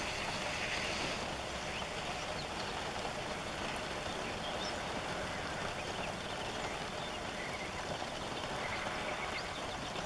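Steady outdoor wind noise: an even hiss with irregular low rumbling from wind on the microphone.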